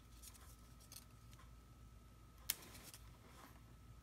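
Faint rustling and ticking of a glue-dot roll and its paper backing being handled and peeled, with one sharp click about two and a half seconds in.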